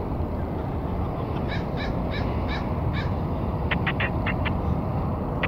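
Boeing 747 LCF Dreamlifter on final approach, its four jet engines a steady low rumble. Over it a bird calls about five times in an even series, then gives a quick run of short calls near the end.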